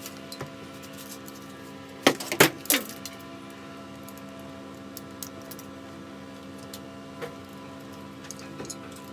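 Small metal parts clinking together, with a quick cluster of loud clinks about two seconds in and lighter clicks scattered afterwards, over a steady electrical hum.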